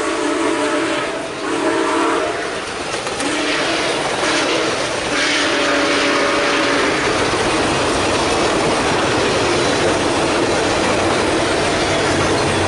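Model GE ES44AC diesel locomotive's sound playing its multi-note horn in a few blasts during the first three seconds, then a loud, steady rushing noise that takes over as the train passes.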